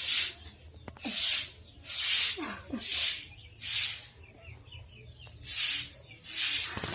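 Mother cat hissing again and again in short sharp bursts, about once a second, with a brief pause midway.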